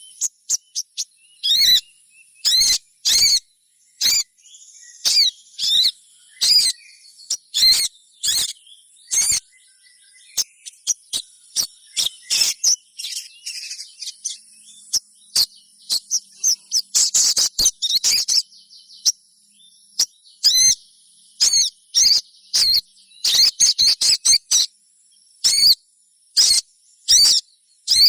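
Little spiderhunter (sogon) giving many short, sharp chirps in irregular runs, each note swooping up and down; these are the chirping calls of a young bird, used to lure other sogon into calling. A faint steady high insect buzz runs underneath.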